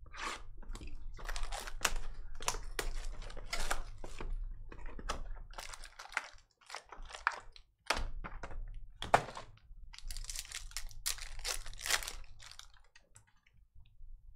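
Foil trading-card pack wrappers crinkling and tearing as packs are handled and opened and the cards are slid out. Irregular rustles and sharp clicks, with a louder snap about nine seconds in.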